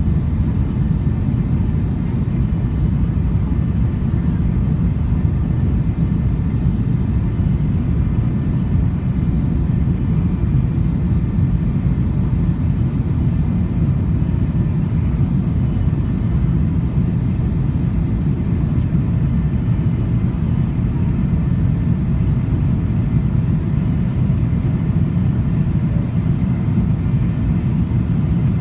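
Steady low rumble of a jet airliner's engines, holding at an even level with no rise or fall throughout.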